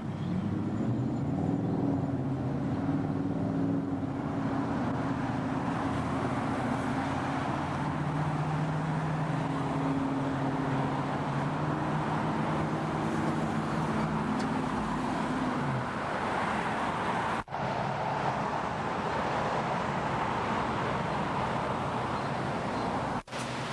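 Traffic noise with a motor vehicle's engine running, steady with a shifting low hum over the first two-thirds. It is then broader hiss, and it cuts out abruptly twice near the end.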